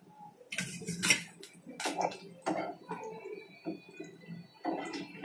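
Metal spatula knocking and scraping against a nonstick frying pan, a handful of sharp clicks spread irregularly, while fried anchovies are lifted out of hot oil that keeps sizzling underneath.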